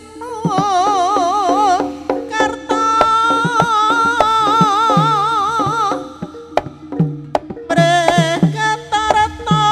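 Live Javanese jaranan music: a high melody line wavering with a strong, regular vibrato over hand-drum strokes whose low notes bend in pitch. About six seconds in the melody drops out for a moment, leaving a few drum strokes, then comes back.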